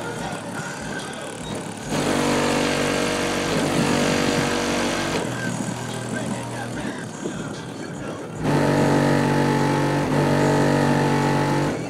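Heavy bass music played very loud through a car's RE Audio 12-inch subwoofers, heard from outside the vehicle. Strong sustained bass notes hit about two seconds in and again about eight and a half seconds in, each lasting about three seconds, with lighter passages between.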